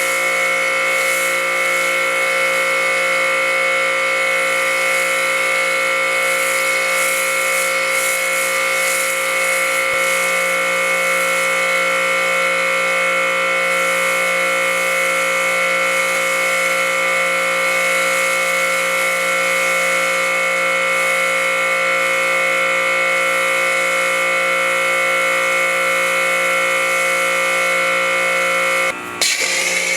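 Electric motor of a power tool running at a steady speed, a constant high whine over a hiss, which stops about a second before the end and is followed by a changed sound.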